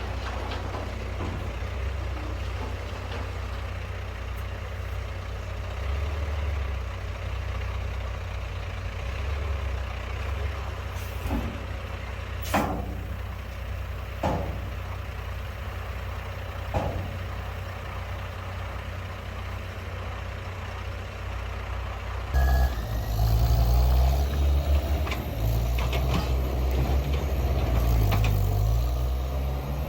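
Skid steer's diesel engine running steadily, with a few metallic knocks in the middle, then working harder and louder from about 22 seconds in.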